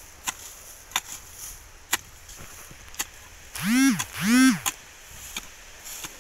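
A bladed hand tool chopping into the soil around a taro plant to lift it for harvest, giving sharp knocks about once a second. Just past the middle come two short calls, each rising then falling in pitch, and these are the loudest sounds.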